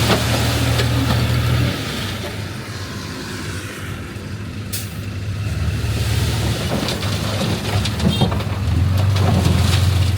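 Heavy diesel engine of earthmoving machinery running; it eases off about two seconds in and builds back up toward the end. There is a brief hiss near the middle.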